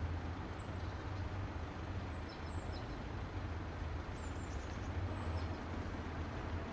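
Steady low hum of background ambience, with a few faint, short, high chirps scattered through it.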